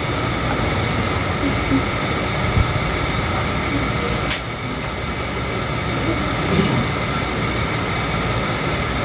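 Steady background hum and hiss with several faint steady tones, broken by a few small knocks and a sharp click about four seconds in.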